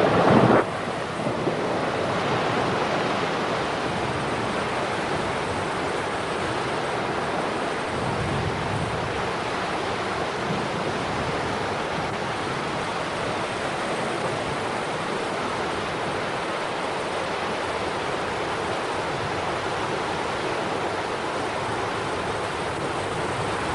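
A steady, even roar of rushing water as a flood surge pours through a canyon.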